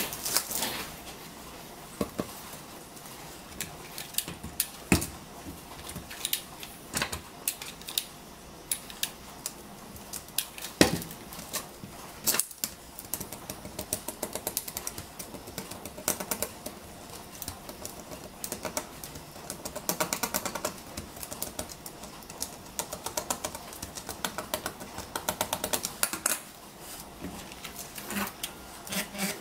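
Rigid aluminium LED strip boards clicking and tapping against each other and the tiled tabletop as they are handled and lined up, in irregular clusters of sharp clicks.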